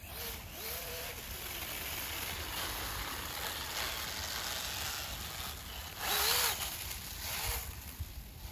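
Skeeride RC snowmobile on a 3S LiPo pack: its electric motor whines, rising and falling in pitch as the throttle is worked, over the hiss of the track in the snow. The biggest throttle burst comes about six seconds in.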